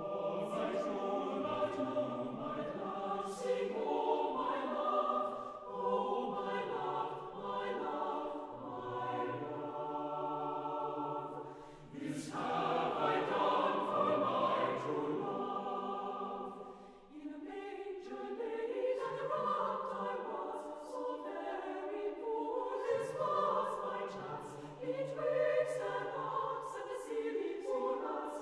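A choir singing slow, sustained chords, as background music.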